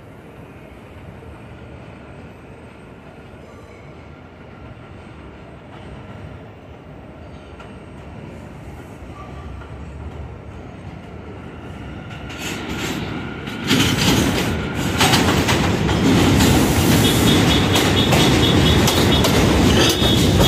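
New York City subway train on the elevated Jamaica Line coming into the station. A low rumble builds slowly, then turns loud and close about two-thirds of the way in as the train runs through, with wheels clacking over the rail joints and a high squeal in the last few seconds.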